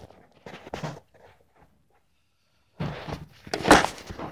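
Handling noise from the recording phone being moved and set back down on the table: a few light knocks, then, about three seconds in, a louder spell of rubbing and bumping.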